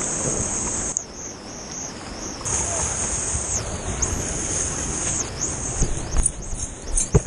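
River water rushing through a rock canyon: a low steady wash under a high-pitched hiss that briefly dips and returns, with a couple of sharp knocks near the end.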